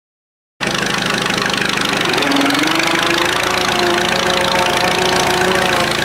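Fordson Standard tractor's petrol-paraffin engine running steadily while pulling a plough, starting about half a second in. A whining tone rides over the engine, rising a little about two seconds in and then holding steady.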